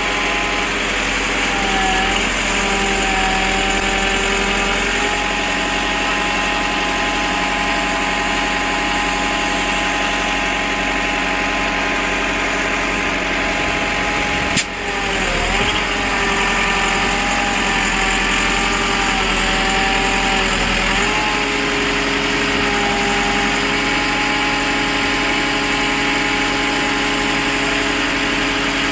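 Tractor engine running steadily, with a sharp click about halfway through, after which its pitch dips and wavers for a few seconds.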